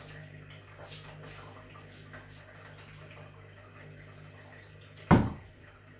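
A dart striking a dartboard hung on a door: one sharp thud about five seconds in, over a steady low hum.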